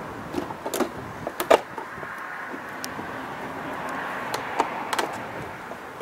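Scattered sharp clicks and taps of a screw, screwdriver and plastic body panel being handled while a scooter's front nose cover is refitted, the loudest a pair about a second and a half in, over a steady background rush.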